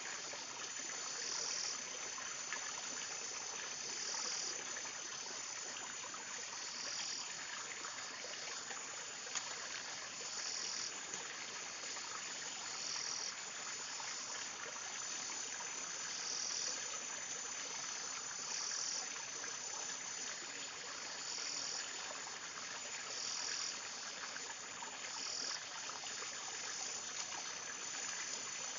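Forest insect chorus: a continuous high-pitched buzz, with a second insect call pulsing in about every two seconds, over a steady hiss of ambient noise.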